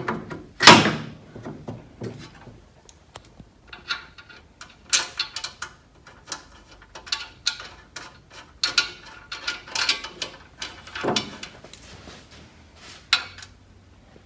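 Metal parts being handled and fitted: the exercise machine's rail being set back onto its frame, with a string of irregular clicks, knocks and short scrapes, the loudest a scrape just under a second in.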